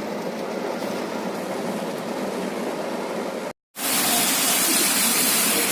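Heavy rain pouring down, a steady hiss. It cuts out abruptly about three and a half seconds in and comes back louder and brighter.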